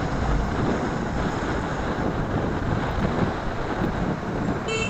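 Wind buffeting the microphone on a moving motorcycle, with the bike's engine and road noise steady underneath.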